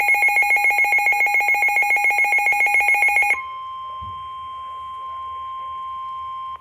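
Weather radio's loud pulsing alert trill of two high tones, which stops abruptly a little over three seconds in and gives way to the steady 1050 Hz NOAA Weather Radio warning alarm tone, the signal that a warning message follows.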